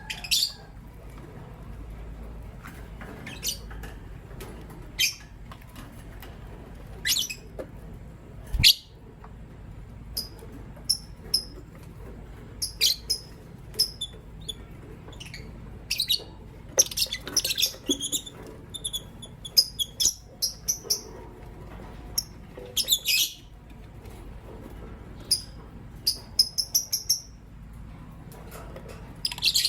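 Masked lovebirds giving short, sharp, high-pitched chirps at irregular intervals, busiest in quick clusters past the middle. A single sharp knock comes about a third of the way in.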